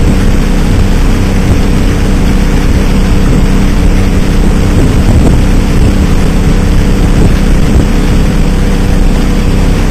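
Skiff's outboard motor running loud and steady under way, its even drone over a continuous rushing noise.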